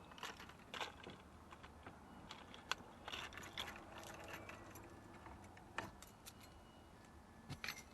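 Light, scattered clicks and small rattles of hard little parts being handled, with a cluster of clicks about three seconds in and another near the end.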